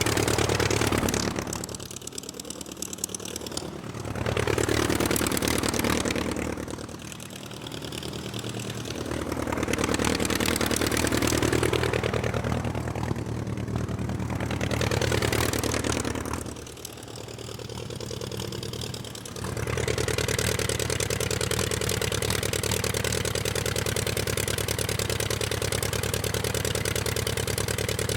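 Aircraft engine running, its revs dropping and climbing back three times, then holding steady.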